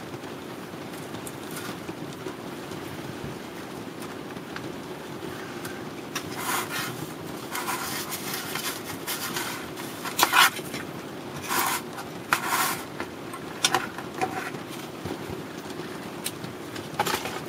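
Handling noises as a digital multimeter and its alligator-clip test leads are unclipped from a small homemade tube circuit board and moved across a cardboard-covered bench: a run of short scrapes and clatters from about six to thirteen seconds in, and one more near the end. A steady low hum runs underneath.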